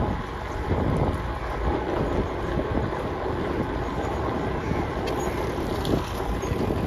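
Steady wind buffeting the microphone with road rumble from a bicycle riding along an asphalt road, and a few faint ticks in the second half.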